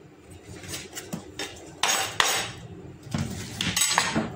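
Kitchenware being handled, clattering and clinking in several short bursts, with the loudest knocks about two seconds in and again near the end.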